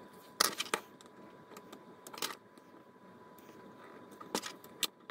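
A handful of sharp plastic clicks and scrapes as a small metal pick pries at the snap clips of a Clapper sound-activated switch's plastic case. The loudest click comes about half a second in.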